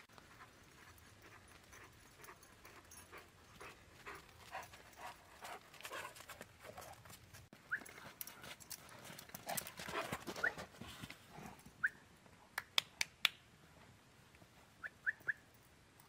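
Footsteps crunching through snow as a dog runs and plays, with a few short high yips from the dog. A handful of sharp clicks come in two quick runs late on.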